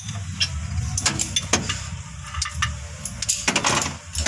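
Petrol engine idling rough with its valve cover off, a steady low hum with the valve gear ticking and sharp metallic clicks scattered through. The misfire comes from one cylinder's valve train, which the mechanic takes for a stuck pushrod or lifter that is not moving its valve.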